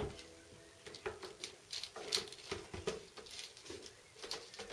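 Irregular soft taps and scuffles, a few a second, of a Maine Coon cat moving and playing on carpet around a cat tree and its toys, with a sharper knock right at the start.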